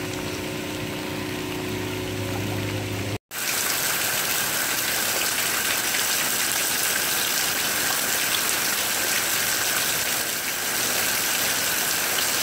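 An engine running steadily for about three seconds, then a sudden cut to a loud, steady hiss of water.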